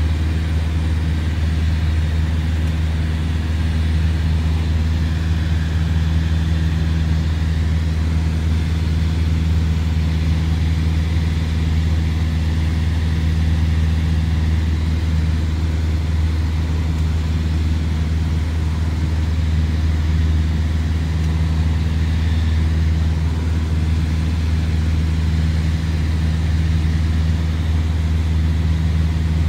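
Light aircraft's piston engine and propeller droning steadily in flight, heard inside the cockpit, with a low, even hum that stays at one pitch throughout.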